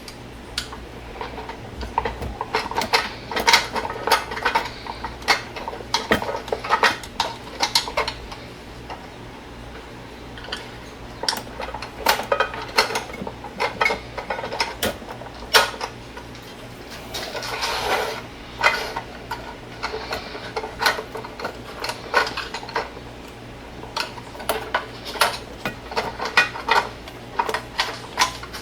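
Clips and tabs of a Uconnect 8.4 radio housing being pried loose, with frequent irregular clicks and clatter as the parts are handled and separated.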